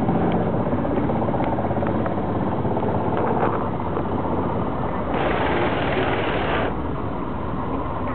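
Boat engine running steadily underway, with a fast rattling pulse. A rushing hiss rises over it for about a second and a half, a little past the middle.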